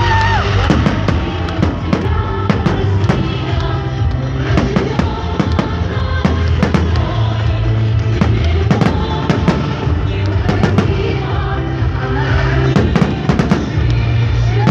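Fireworks display: many sharp bangs and crackles of bursting shells, scattered through the whole stretch, over loud music with a steady bass.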